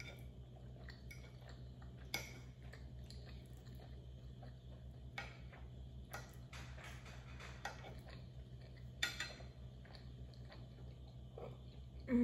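Metal fork clinking and scraping against a ceramic plate of pasta, a handful of separate clinks spread apart, over a low steady hum.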